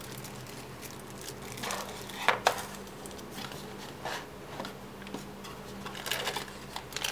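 Small plastic zip-lock bags crinkling and rustling as they are handled and set down, with a sharper tap a little over two seconds in, over a faint steady hum.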